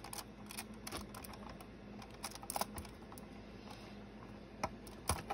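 Lego plastic pieces clicking and rattling in irregular small taps as a hand works at the stuck roof of a Lego train car, trying to pry it open.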